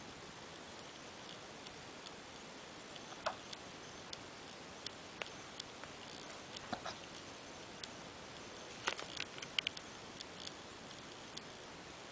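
Chihuahua hiccuping: short hics a few seconds apart, with faint clicks in between.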